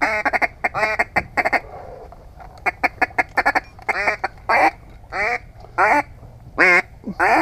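Duck call blown in a string of quacks: quick runs of short quacks, then single longer, louder quacks about two-thirds of a second apart.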